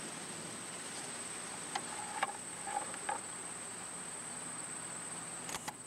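Crickets trilling steadily in a high, even drone. A few faint short clicks come about two to three seconds in, and two sharp clicks close together near the end.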